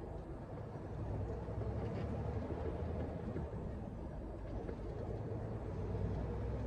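Lorry engine running with a steady low drone under road noise while the truck is being driven.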